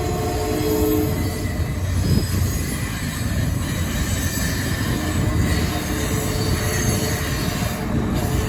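Canadian Pacific Holiday Train rolling by with a steady heavy rumble, its wheels squealing in high, shifting tones.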